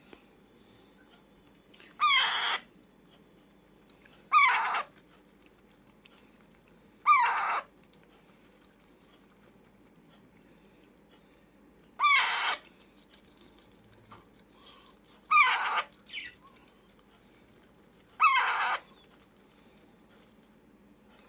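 Alexandrine parakeet giving loud, harsh squawks: six calls of about half a second each, a few seconds apart, with a short extra note after the fifth.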